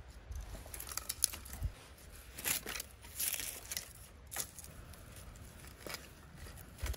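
Dry driftwood and branches being handled while gathering firewood: scattered rustling with light cracks and clicks, loudest around the middle.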